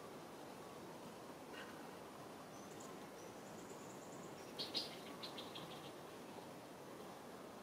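A few high-pitched animal chirps over a faint steady outdoor background; the loudest come just past halfway, followed at once by a quick run of five or six fading chirps.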